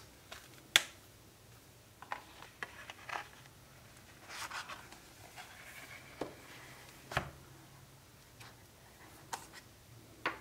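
Hands handling a smartphone and its packaging: scattered light clicks and taps with a short rustle, the sharpest click about a second in.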